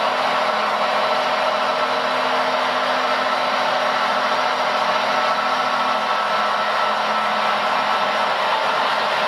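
Hydraulic pump of a radio-controlled Liebherr 956 model excavator running, a steady whirring hiss with faint even tones. A low hum under it fades about six seconds in.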